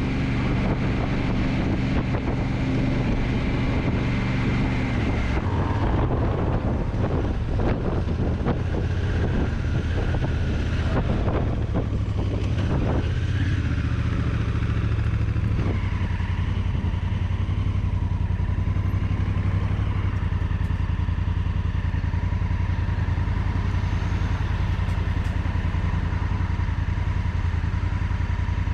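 Honda CRF1000L Africa Twin's parallel-twin engine running as the motorcycle is ridden. Its note changes about five seconds in, with scattered knocks and clatter over the next several seconds, then it settles into a steady low-rev rumble.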